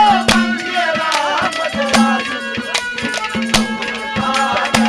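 Instrumental interlude of Haryanvi ragini music: a wavering melodic line over a steady held drone, with a drum striking a quick rhythm of about three or four strokes a second.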